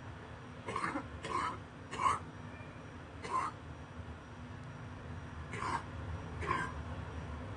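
A person coughing with a wet cough: three short coughs in quick succession, a single one, then two more.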